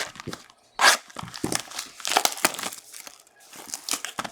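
Plastic wrapping on a box of trading cards being torn open and crinkled in irregular crackles and rips.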